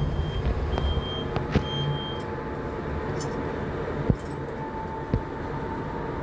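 Lift door-closing warning beeps repeat, a high beep every half second or so, and stop about two seconds in. The lift car then travels down with a steady hum and a few sharp clicks. A steady whine comes in about four and a half seconds in.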